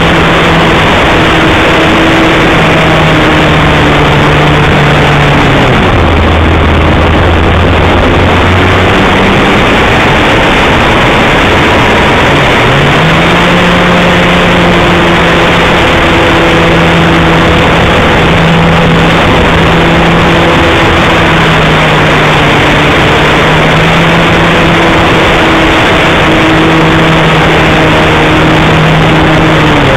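Wot 4 Mk3 radio-controlled model plane in flight, heard from its wing-mounted camera. Its engine and propeller run at a steady high pitch under loud wind rush, drop to a low drone about six seconds in, climb back up around twelve seconds, and drop again near the end as the throttle is worked.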